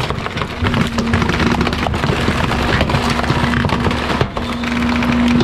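Bulk-waste truck running, with a steady hum that comes and goes under dense, irregular crackling and clattering.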